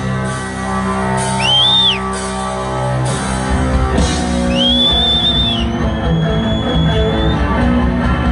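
Live rock band playing a song: held chords over a steady beat, with a high note that bends up and back down twice, then holds and slowly rises.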